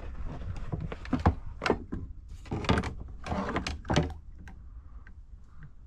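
Knocks, thunks and scraping on a kayak and its paddle as it is worked through a low, tight spot in a creek, ducking under an obstruction. There are several sharp knocks in the middle seconds, then it settles down near the end.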